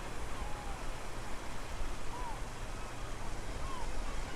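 Strong wind rushing and rumbling on the microphone, with short chirping bird calls over it several times.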